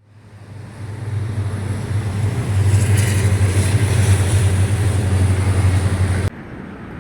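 Steady low rumble and road noise of a moving vehicle, fading in over the first second and cutting off abruptly about six seconds in.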